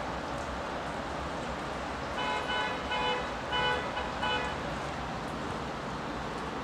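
Steady rain hiss, with a horn sounding a quick run of about five short toots a couple of seconds in.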